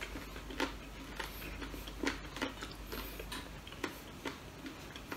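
Eating by hand: soft, irregular clicks and taps of chewing and fingers working food on a plate, about one or two a second.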